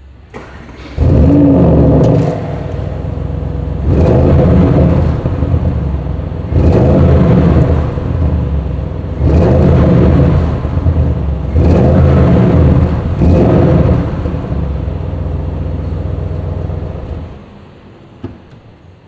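2023 Audi RS7 Sportback's twin-turbo V8 starting with a loud flare about a second in. It is then revved about five times in short blips, the last two close together, and idles between them. The engine sound falls away near the end.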